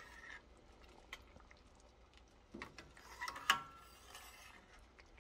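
A steel ladle stirring thick dal in a stainless steel pan: scattered soft clinks and scrapes of metal on metal, the sharpest knock about three and a half seconds in.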